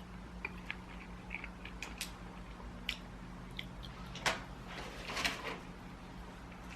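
Quiet sounds of eating at a table: scattered small clicks, a sharper knock a little after four seconds and a short rustle just after it, over a steady low hum.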